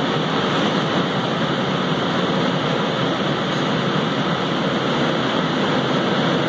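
Miyano LM-21 four-spindle CNC turning center running its cycle, heard through the closed enclosure: a steady, even wash of machine noise and coolant spray with no breaks.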